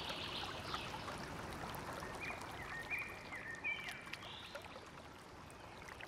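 Faint running water, like a small stream trickling, with a few short high chirps between about two and four seconds in.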